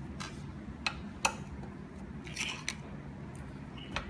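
Hex screwdriver clicking and scraping against the metal front bolts of a 3D printer as they are unscrewed: a handful of sharp little clicks, the loudest about a second in.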